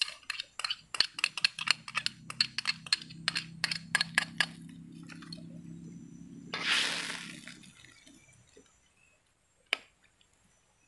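Glass oyster-sauce bottle clinking again and again against the rim of a metal cooking pan as the sauce is shaken out: quick sharp clinks over the first four seconds or so. A low steady hum runs underneath until about eight seconds in, with a short hiss around seven seconds.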